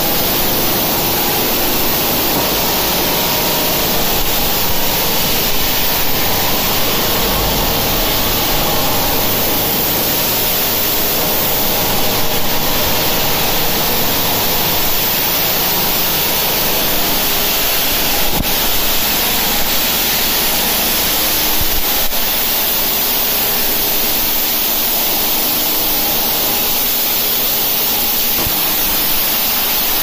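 Plastic drum washing and recycling line running: a loud, steady rushing noise of machinery, with a faint motor hum underneath.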